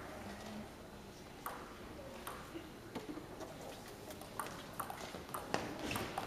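Table tennis ball clicking off paddles and table: a few spaced clicks at first, then a quicker run of hits in a rally during the second half.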